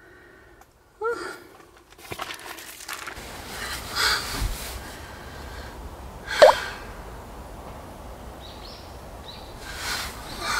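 A woman's brief gasps and vocal noises with fabric rustling as she lies down and rolls on a thick quilted mattress, over a steady outdoor hiss. The loudest is a short, rising cry a little past the middle.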